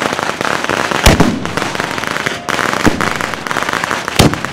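Firecrackers and fireworks going off in a dense, rapid crackle, with three louder sharp bangs: about a second in, near three seconds, and near the end.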